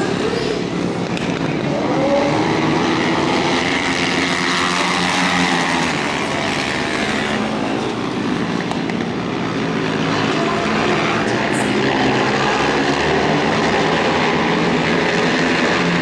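Flat-track racing motorcycles running at race speed on a dirt oval. The engine notes rise and fall in pitch as the riders throttle through the turn and down the straight.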